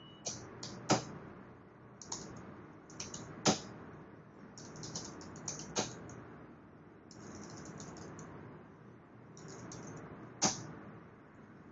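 Typing on a computer keyboard: short runs of keystrokes separated by pauses, with four louder single key strokes spread through.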